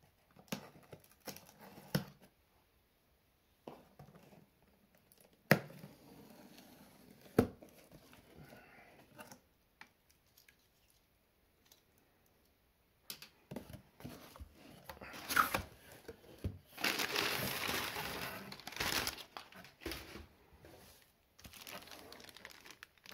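A cardboard shipping box being cut open with a utility knife and its flaps pulled apart: a few sharp knocks and scrapes. From about halfway, crumpled kraft packing paper rustles and crinkles as it is pulled out of the box.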